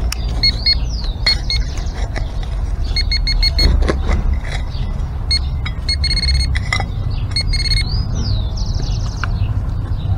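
Handheld metal-detecting pinpointer beeping in quick trains of short beeps as it is probed into the dug soil, with a longer unbroken run about six seconds in: it is sitting close to a buried metal target. A bird calls twice in the background.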